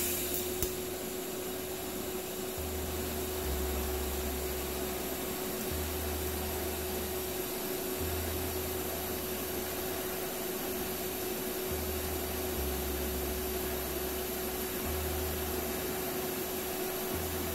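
TIG welder arc running continuously while welding a steel exhaust downpipe bend: a steady hiss with a steady hum tone running through it.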